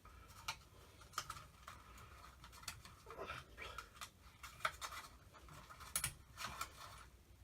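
Light clicks, scrapes and rustling from hands handling a ceiling fan light kit and its wires, with sharper clicks about a second in and near six seconds in.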